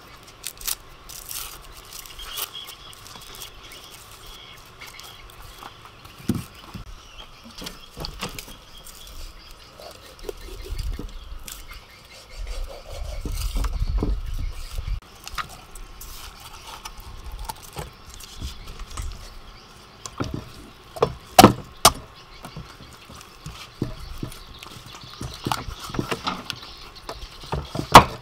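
A cleaver chopping through raw chicken on a wooden chopping block, amid quieter knife and handling knocks. The sharpest chops come just past the two-thirds mark, the loudest one right at the end, and a low rumble runs for a couple of seconds midway.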